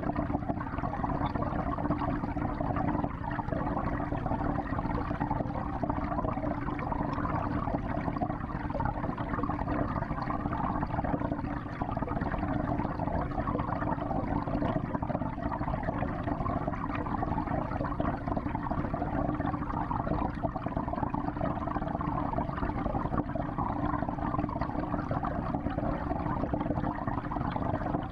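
Steady wash of circulating water in a 55-gallon home aquarium, even and unbroken, with most of its sound low and muffled.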